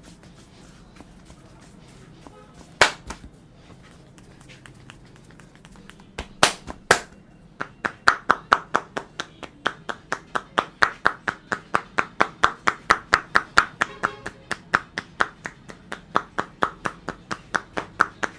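Percussive hand massage: a barber's palms slap in a quick, even rhythm of about three strikes a second, after a few separate sharp slaps.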